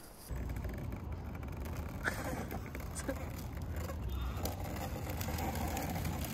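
Plastic wheels of a child's wagon rolling over rough pavement: a steady low rumble that starts suddenly about a third of a second in and slowly grows louder, with a few faint clicks.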